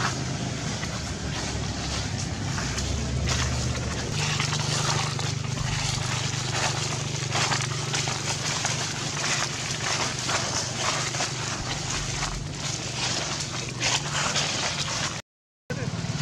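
Dry fallen leaves crackling and rustling over a steady low hum, with a brief dropout in the sound near the end.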